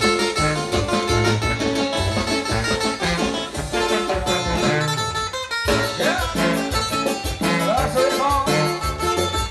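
Norteño-banda dance music with strummed guitar-like strings over a steady bass beat, broken by a short gap a little past halfway before the band comes back in.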